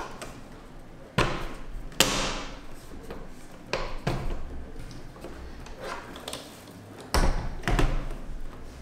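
Hard plastic clicks and knocks as a mop mounting plate is pressed with some force onto the underside of an ILIFE V7S Pro robot vacuum. About seven seconds in comes a heavier thump as the robot is turned over and set down on the table.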